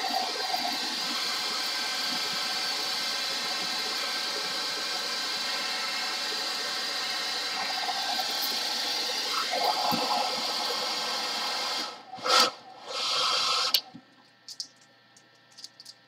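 Handheld hairdryer blowing hot air steadily over a diamond-painting canvas to smooth out its folds, a motor whine over the rush of air. About twelve seconds in it cuts out, gives two short blasts, and switches off, leaving faint rustles of the plastic cover being pressed flat.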